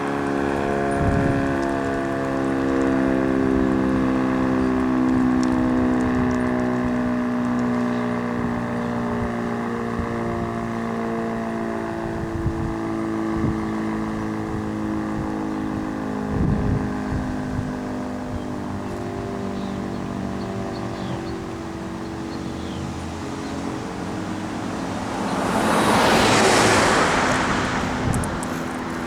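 Sentry 10V2T dual-tone, 10 hp dual-rotor tornado siren winding down after its alert, its chord of tones slowly falling in pitch and fading. Near the end a car passes by, the loudest sound in the stretch.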